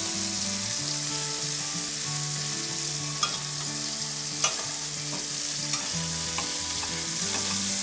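Pheasant breast slices sizzling steadily in clarified butter in a frying pan over a medium flame, with a few sharp clicks of a metal utensil against the pan as the meat is worked loose.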